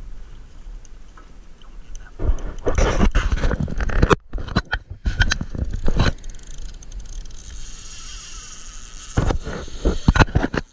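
A hand rubbing and bumping against the action camera's housing right by its microphone, in three loud rustling bursts: the first about two seconds in, the second around five seconds, the last near the end.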